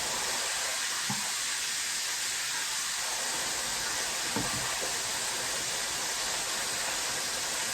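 Chicken frying in hot oil, a steady high sizzling hiss, with a faint soft knock about a second in and another about four and a half seconds in.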